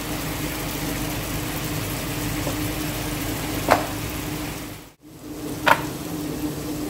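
Two short knocks, about two seconds apart, from handling a wooden rolling pin and a round metal pizza pan on the counter, over a steady hiss with a low hum.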